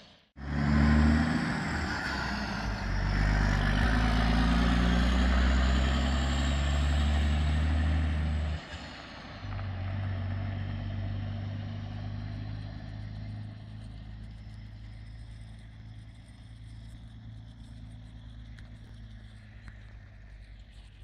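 DAF XF articulated truck's diesel engine pulling away under load, its note changing in steps. About nine seconds in it drops sharply, then fades to a lower steady hum as the truck moves off.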